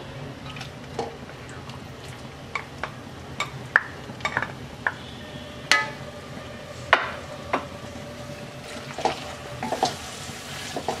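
Wooden spatula stirring thick jujube-and-tamarind pickle in a metal pan, with irregular scrapes and taps against the pan, a few ringing briefly, over a low steady sizzle of the cooking mixture.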